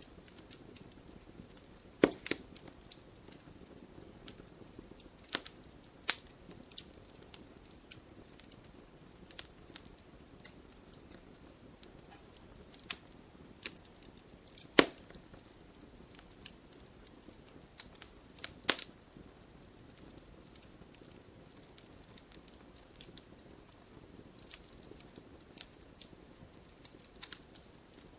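Wood fire burning in a fireplace: a soft steady hiss with irregular sharp crackles and pops, a few of them much louder than the rest.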